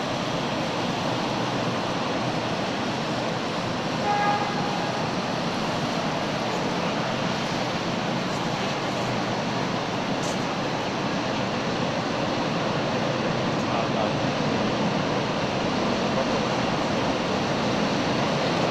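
Steady rushing noise of water churned by a pusher tug's propeller as it moves out of the canal lock, with the tug's engine mixed in. A short high tone sounds about four seconds in.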